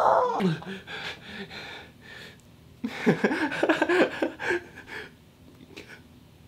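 A young man's voice without words: a falling moan trails off, then gasping breaths, and a little under three seconds in a burst of breathless, rapid laughter lasting about two seconds before it dies down.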